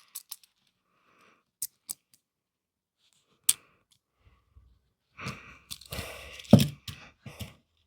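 Plastic Mathlink cube pieces being handled and fitted together. A few sparse small clicks come first, then a busier stretch of rubbing and clicking in the last few seconds.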